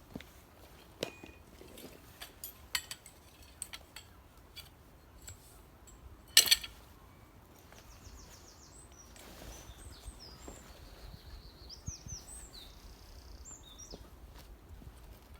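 A songbird singing in short high chirps and trills through the second half. Before it come scattered sharp clicks and knocks, the loudest a quick double knock about six seconds in.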